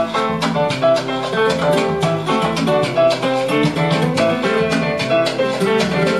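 Recorded music led by a plucked guitar, playing quick runs of notes.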